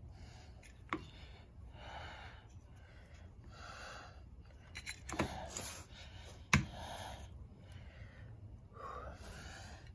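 A man breathing hard, about six heavy breaths, as he strains to compress the spring-loaded clutch assembly by hand. A few sharp clicks from the parts come through, the loudest about six and a half seconds in.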